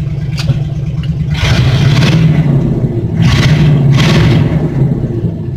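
Ford pickup's engine running loud, blipped up twice to around 2000 rpm, each rev lasting about a second before dropping back toward idle. The engine has just been started after sitting a couple of days, with its fuel low.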